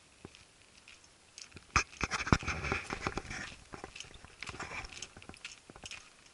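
Irregular crackling and rustling close to the microphone, with several sharp clicks. It starts about a second and a half in, is densest for the next couple of seconds, then comes in scattered patches.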